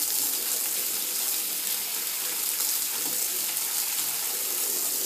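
Garden hose spraying a steady jet of water, a continuous hiss as the spray strikes the wall and the concrete ledge.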